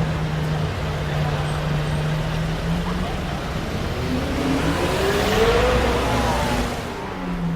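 Lamborghini Murciélago V12 through a Capristo exhaust, a steady low drone, then the engine note climbing from about four seconds in, loudest around five and a half seconds, before dropping away about seven seconds in.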